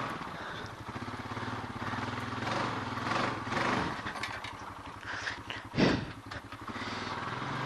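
Honda ATV engine running as the four-wheeler is ridden, with its fine, rapid firing pulses heard throughout. There are rushes of noise about three seconds in and a single thump about six seconds in.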